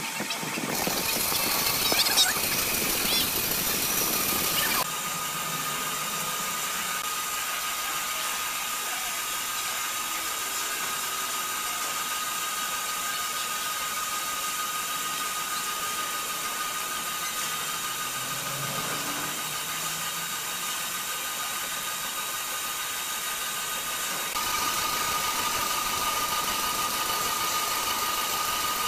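Industrial band saw running and cutting through a large timber block. In the first few seconds there is a louder hissing cut with brief squeals. After that the machine hums steadily with a thin high whine, which grows louder near the end.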